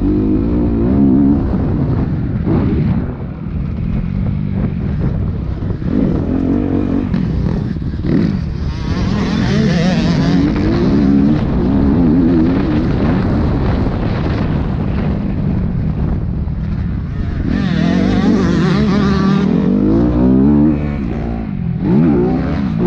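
Dirt bike engine heard from the bike itself, revving up and falling off again and again as the rider accelerates, shifts and backs off over rough ground. Wind rushes over the microphone twice at speed, about nine and eighteen seconds in.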